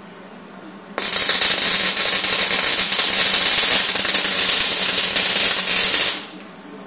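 Arc welding on steel tubing: the arc crackles and spits loudly for about five seconds, starting abruptly about a second in and cutting off near the end.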